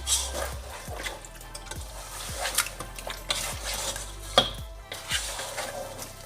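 A spoon stirring seasoned meat in a cooking pot, with irregular scrapes and clinks against the pot and one sharper knock a little over four seconds in.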